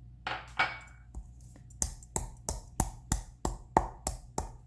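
Black peppercorns tipped into a mortar with a short rattle, then pounded with a pestle in a steady run of sharp strikes, about three a second, crushing them.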